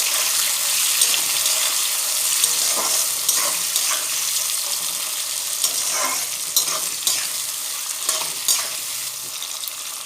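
Sliced onions sizzling as they fry in hot mustard oil, stirred with irregular scraping strokes against the pan.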